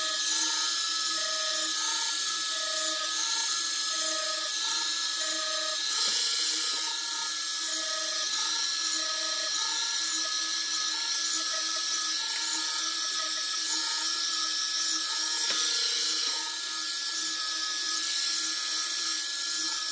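Crankshaft belt polisher working the journals of a diesel crankshaft as it turns in a crank grinder, at the first, coarser abrasive-belt stage. It gives a steady machine whine with a regular pulsing.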